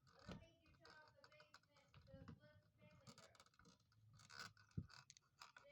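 Near silence with faint, scattered small clicks and light scratching, and a faint voice in the background.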